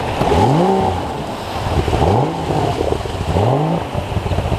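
A 50 hp two-stroke outboard driving a jet unit revs up sharply three times, about every second and a half, each time climbing then falling back, over the rush of a shallow rocky rapid. The throttle is being worked to push the inflatable jet boat up through the rapid.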